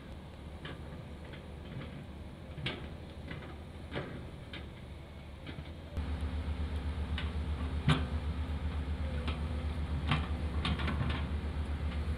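An engine running with a steady low pulsing hum, which gets louder suddenly about halfway through, with scattered sharp clicks and knocks over it.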